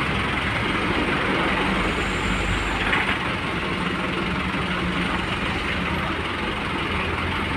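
A medium-size school bus's diesel engine running steadily as the bus pulls slowly past at low speed.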